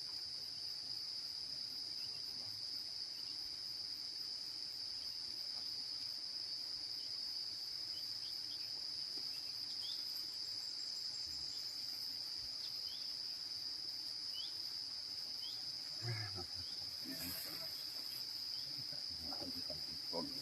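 Steady, high-pitched insect trill that holds one pitch without a break, with a few faint short chirps scattered above it.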